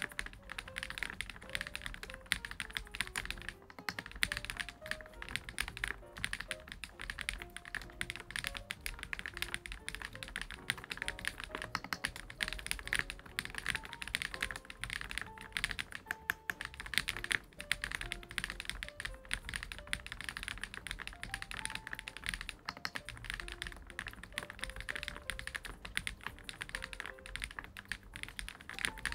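Fast, continuous typing on a GLITTER65 R2 gasket-mount 65% mechanical keyboard: a dense stream of key clacks. Soft background music with a slow melody of single notes plays under it.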